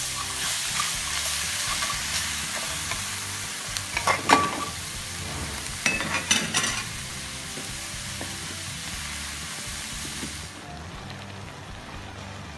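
Crabs and onions sizzling in a steel wok while a metal spatula stirs them, with loud clattering scrapes of the spatula against the wok about four seconds in and again around six seconds. The sizzle drops away sharply near the end.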